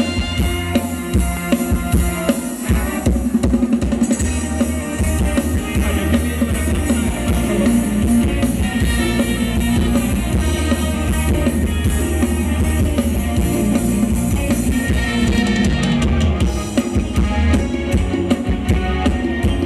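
Live band playing a Thai ramwong dance song, with a drum kit keeping a steady beat.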